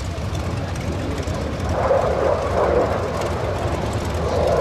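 Jet noise from an F-16AM Fighting Falcon's Pratt & Whitney F100 turbofan as the fighter manoeuvres overhead: a steady rumble that grows louder about two seconds in.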